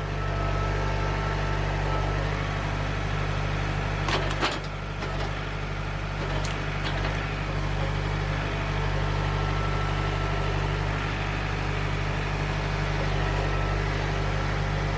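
Engine running steadily at a constant speed, with a few sharp clicks about four and six and a half seconds in.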